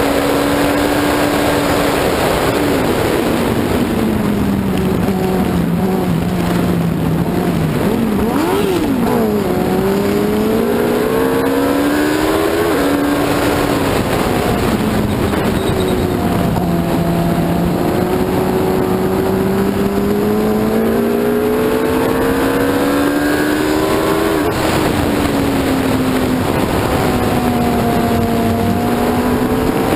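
Onboard sound of an F1 racing sidecar's 1000cc four-stroke motorcycle engine at racing speed. The engine note falls away under braking into corners and climbs under acceleration, with sharp pitch drops at gear changes, over a steady rush of wind.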